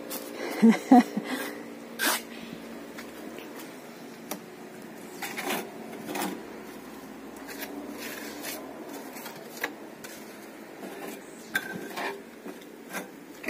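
Small steel trowel scraping and tapping wet cement mortar onto a concrete water tank wall to patch it, in scattered short scrapes and clinks.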